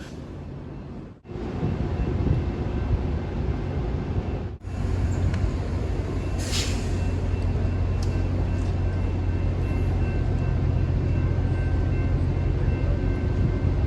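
Diesel locomotive running with a steady low rumble, with a short air hiss about halfway through.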